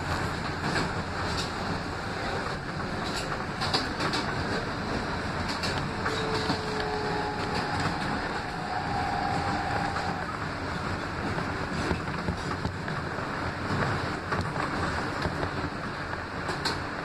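R160B Siemens subway car running along the track: a steady rumble of wheels on rail, scattered sharp clicks from the rails, and a couple of brief faint tones about six to ten seconds in.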